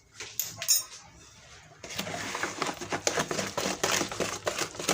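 A few light clinks of a utensil on a bowl, then from about two seconds in, cake batter is mixed in a bowl with a steady run of rapid clicking and rattling against the bowl.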